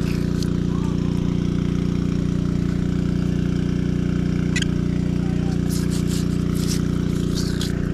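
An engine idling steadily with a constant low hum. Near the end, crackling and scraping as debris is picked off a fishing magnet by hand.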